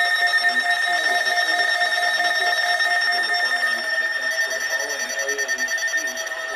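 Several NOAA weather radios alarming at once for a Required Weekly Test: electronic alert tones at several different pitches overlap. One lower tone pulses on and off through the first half, while the others hold steady.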